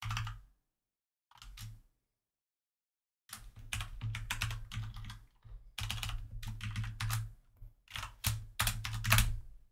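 Typing on a computer keyboard: a few keystrokes at the start and again a bit over a second in, then quick runs of rapid keystrokes from about three seconds in.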